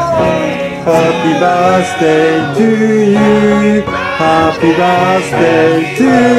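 Music with singing voices, moving in melodic steps with long held notes.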